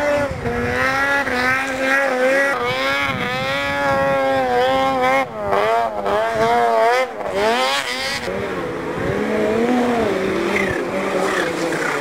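Snowmobile engine revving hard under load on a hillclimb, its pitch rising and falling over and over as the throttle is worked.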